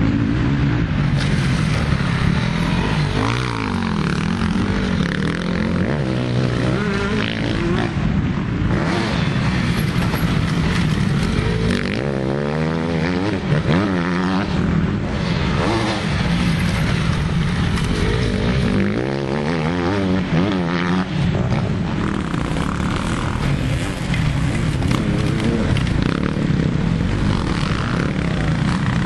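Motocross dirt bike engines running hard, revving up and falling back again and again as the bikes ride the track and take the jumps.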